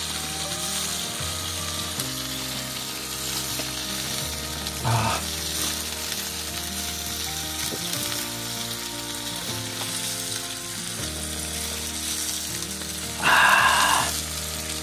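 Chicken skewers sizzling over a charcoal grill, over soft background music of held chords. Near the end a man lets out one short, louder "ahh" after a swallow of beer.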